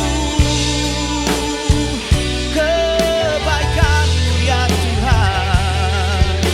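Live worship band playing an instrumental passage with electric guitar, bass and drums, with a wavering melodic lead line over sustained chords.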